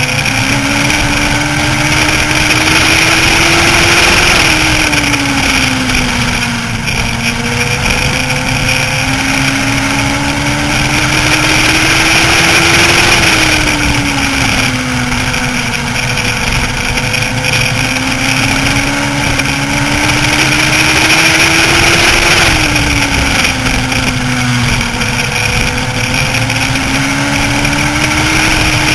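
On-board sound of a Legends race car's Yamaha 1250 cc four-cylinder motorcycle engine at racing speed. Its pitch climbs steadily under full throttle, then falls as the driver lifts for the turns, about every nine seconds.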